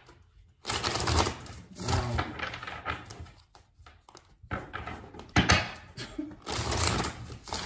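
Tarot cards being shuffled and handled: stretches of rustling and flicking with a few light knocks.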